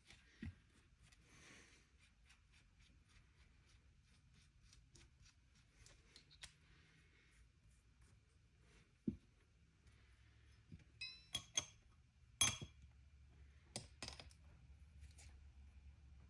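Sparse metallic clicks and clinks of a wrench and nuts being handled while double-nutting a seized cylinder stud, a handful of light taps spread out, the loudest clink about twelve seconds in.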